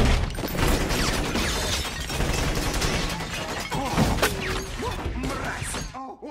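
Movie shootout: rapid pistol shots with glass bottles shattering and things smashing, starting suddenly and breaking off about six seconds in.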